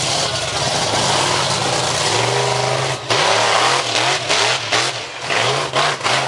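Monster truck engine under heavy throttle, then blipped in quick revs that rise and fall two to three times a second as the truck climbs onto and drives over a row of cars.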